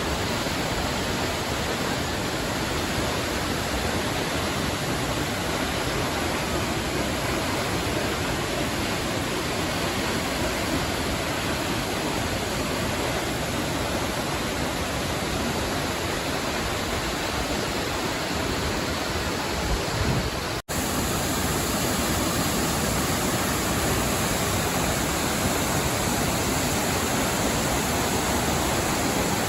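Steady rushing of water from Nachi Falls, a tall single-drop waterfall, an even noise with no pauses, broken only by a momentary dropout about two-thirds of the way through.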